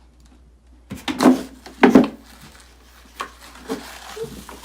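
A cluster of loud knocks and bangs on something wooden starting about a second in, followed by a few lighter knocks.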